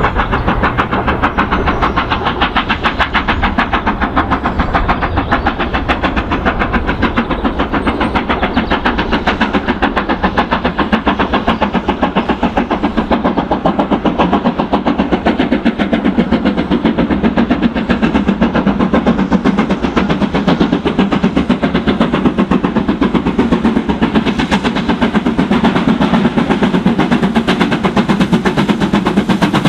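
BR Standard Class 7 'Britannia' 4-6-2 steam locomotive No. 70000 approaching at speed, its exhaust beating in a rapid, even rhythm and growing a little louder near the end as it comes closer.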